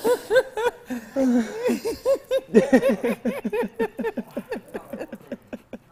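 Men laughing hard in quick rhythmic bursts, about four a second, that grow fainter and die away near the end.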